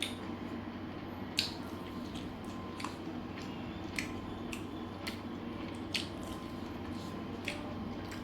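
Hot fried chicken leg piece being pulled apart by hand: small wet squishes and sharp clicks, about one a second, over a steady low hum.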